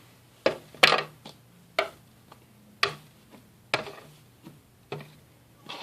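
A series of short, sharp clicks and taps, roughly one a second and unevenly spaced, from small objects being handled.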